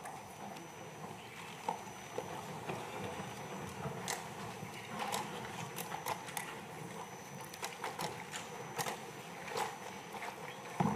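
Scattered knocks and clicks, such as papers and microphones being handled and people shifting about, over the low murmur of a large legislative chamber.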